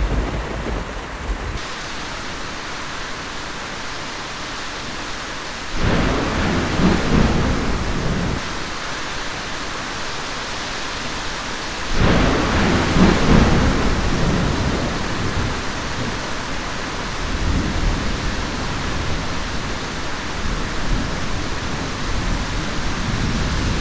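Steady rain with two rolls of thunder, the first about six seconds in and the second about twelve seconds in.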